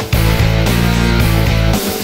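Heavy rock music with electric guitar: a loud chord is held for most of the time, cut off briefly at the start and again near the end in a stop-start riff.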